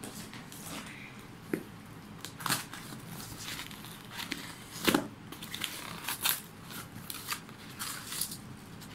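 Paper-and-cardboard shipping package being handled and torn open by hand: irregular crinkling and tearing, with sharper crackles about two and a half and five seconds in.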